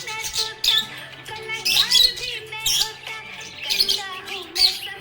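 Budgerigar chirping and chattering in quick, irregular bursts of high warbles, over background music.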